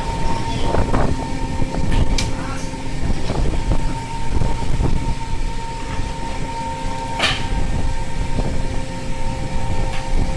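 Fishing boat's engine and deck machinery running, a steady low rumble with a constant hum, with a few sharp knocks about two and seven seconds in.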